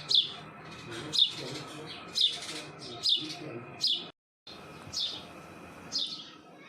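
Young sparrow chirping: single high chirps about once a second, each falling in pitch, with a brief cut about four seconds in.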